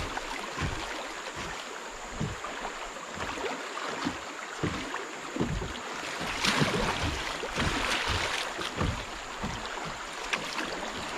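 Kayak on moving river water: a steady rush of water, with irregular low buffeting of wind on the microphone.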